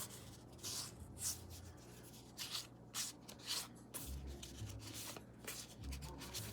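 Topps Heritage baseball cards sliding and rubbing against each other as a stack is flipped through by hand: a string of short, irregular papery swishes.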